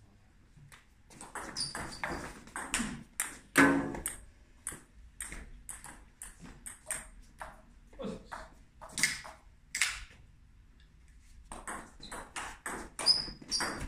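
Table tennis rally: the plastic ball clicking sharply off the rubber bats and the tabletop in an uneven run of pings. Play stops for about a second and a half, then picks up again near the end.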